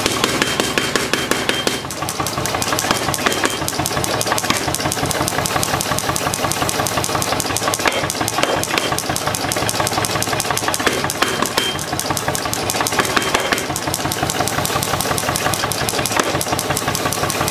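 Power hammer running steadily, its ram striking a glowing hot steel block on the lower die in a rapid, even train of blows.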